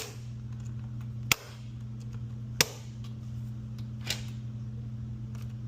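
A bump key in a Yale Assure smart lock's pin-tumbler cylinder being struck sharply four times, about a second and a half apart, the last strike softer, to jump the pins and open the lock. A steady low hum runs underneath.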